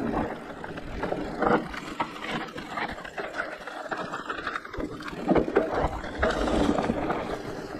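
Giant Reign E+ e-mountain bike riding a rough trail: a steady rush of tyre noise with many irregular clatters and knocks from the bike.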